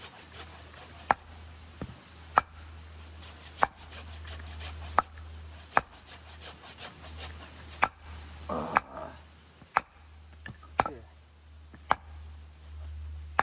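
Firewood being split on a chopping stump: sharp wooden knocks at irregular intervals of about a second, as a blade is driven down through an upright log. Between the knocks runs a continuous rasping of a hand saw cutting wood.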